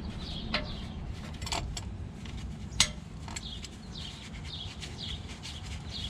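Birds chirping over and over, with a few sharp metal clicks and taps from hand tools working loose the actuator on a Chevy Avalanche's front differential. The loudest click comes about three seconds in.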